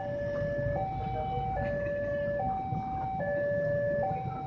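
Railway level-crossing warning alarm sounding its electronic two-tone signal, a lower and a higher tone alternating, each held a little under a second, over a low background rumble. The alarm means a train is approaching and the crossing barriers are down.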